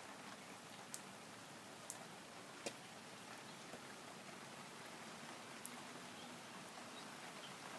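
Light rain falling steadily, a faint even hiss, with a few separate drip ticks.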